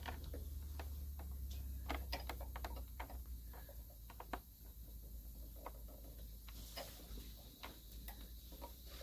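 Helicoil insert being wound into a spark plug hole with a hand installation tool: irregular small metallic clicks and ticks from the tool and the insert. Under them is a low hum that weakens a few seconds in.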